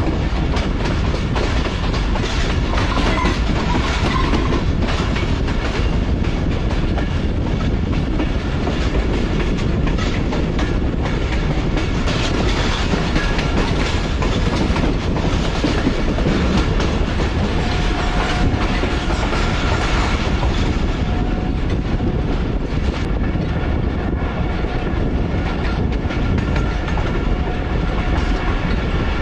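Rehman Baba Express passenger train running along the track, heard from aboard: a steady, loud rumble of wheels on the rails.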